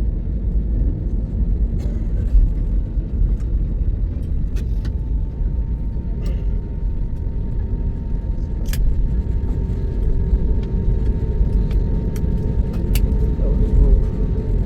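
Steady low rumble of an airliner heard from inside the passenger cabin, with scattered light clicks and rattles.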